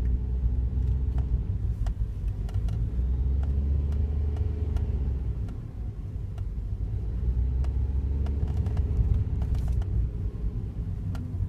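Daihatsu Wake kei car running, a low rumble with a pitch that rises and falls twice, and scattered short clicks. The car has developed an abnormal noise that is worst when it is cold outside.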